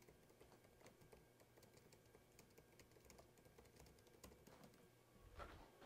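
Near silence: room tone with a low steady hum and faint scattered clicks, a little louder near the end.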